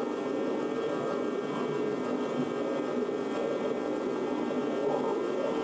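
A steady mechanical hum with a faint whine over it, even throughout with no strokes or breaks.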